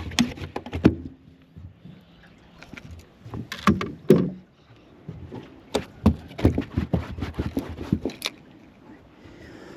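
Scattered knocks, taps and clatters of handling in a small fishing boat, with a freshly landed flathead in the boat, coming in short clusters a few seconds in and again later.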